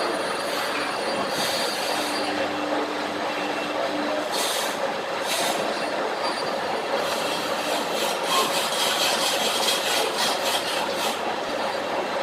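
Metalworking machinery running steadily: a constant mechanical din with a steady hum and a flickering high hiss in the second half.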